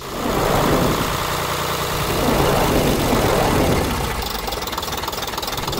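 An engine running roughly, with a fast, uneven pulse.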